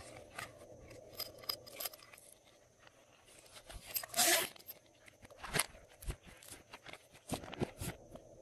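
Glossy slime being worked by hand: sharp sticky clicks and crackles, with one louder, longer squish about four seconds in.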